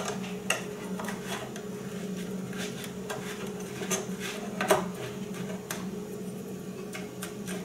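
Metal spoon pressing and scraping crushed biscuit crumb into small heart-shaped tart moulds: irregular light clicks and scrapes, with a louder knock about four and a half seconds in, over a steady low hum.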